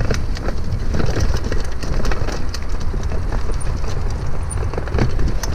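Mountain bike rattling and clattering as it rides over a rough dirt trail, with many irregular knocks, and heavy wind rumble buffeting the bike-mounted camera's microphone.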